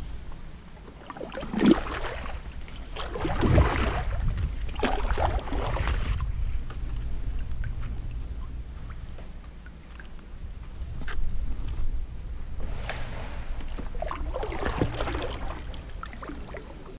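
Kayak paddle strokes splashing and water sloshing against the hull in irregular bursts, over a steady low rumble.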